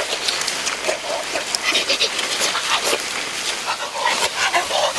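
People making excited, animal-like wordless cries and grunts, over a steady hiss full of sharp crackles.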